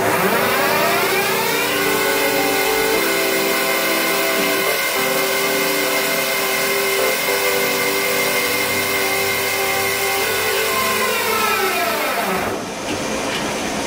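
CNC lathe spindle drive whining: the pitch rises as the spindle speeds up over the first couple of seconds, holds steady while it runs, then falls as it slows down about two seconds before the end.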